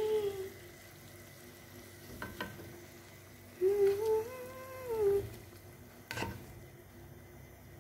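A person humming a short tune twice, over the faint sizzle of chicken pieces simmering in sauce in a pan, with a wooden spoon knocking against the pan twice.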